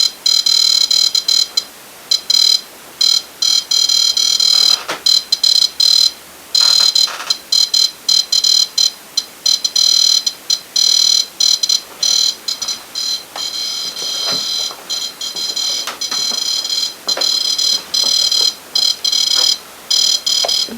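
Ghost-hunting proximity alarm device beeping: a shrill electronic tone that cuts in and out in rapid, irregular bursts, signalling that it has been triggered.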